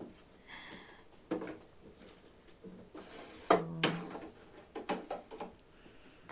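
Kitchen clatter as things are handled off-camera: a few separate knocks and thumps, the loudest about three and a half seconds in and a quick cluster near five seconds, like a drawer or cupboard and dishes being moved.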